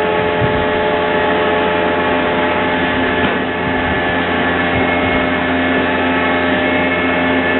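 Wood gasifier generator set's machinery running, a loud steady drone made up of several steady hums. A further hum joins about two seconds in and stops near the end.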